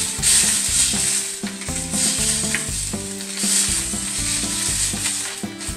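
Longaniza sausages sizzling in oil in a frying pan, being turned with metal tongs. Background music plays underneath, its low notes changing in steps.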